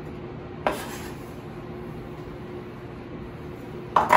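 Kitchen knife chopping garlic cloves on a wooden cutting board: one sharp knock about two-thirds of a second in, then two quick knocks near the end, over a steady low hum.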